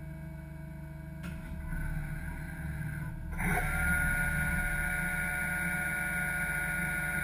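Doosan Lynx 220 LY CNC mill-turn lathe running with a steady hum; about a third of the way in a spindle spins up, its whine rising in pitch and then holding steady and louder.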